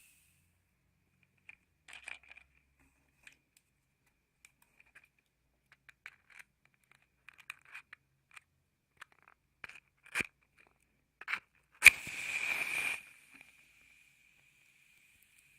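Wooden matches handled with scattered small clicks and rattles, then a match struck about twelve seconds in: a sharp scrape-click and about a second of hissing flare as it catches.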